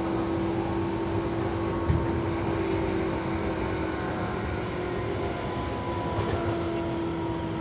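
Inside a running Tobu Tojo Line electric express train: a steady rumble of the car on the rails with a constant hum, and a single knock about two seconds in.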